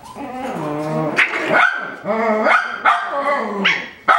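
Coton de Tulear puppies barking: a string of about five drawn-out, whiny barks that bend in pitch, one after another.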